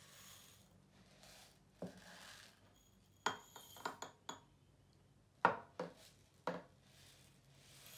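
Dry rice poured from a plastic jug into small glass cups with a soft hiss, then a series of clinks and knocks as the glasses are handled and set down on the table, a few with a brief glassy ring.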